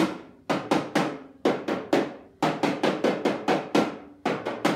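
Small toy drum beaten with a stick in quick runs of sharp strikes, about four or five a second, with short pauses between the runs.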